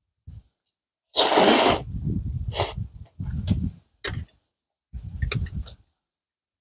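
A person slurping cold udon noodles, one loud slurp about a second in, then chewing and further short slurps in bursts.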